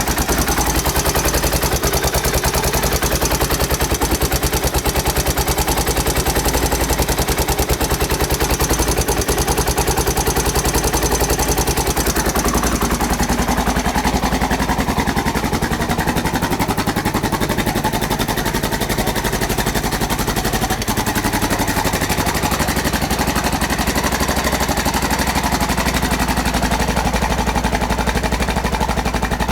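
Honda XR600R's single-cylinder four-stroke engine idling after a cold start, its exhaust beats coming fast and even. The running carries the timing (cam) chain noise that the owner is presenting as a fault.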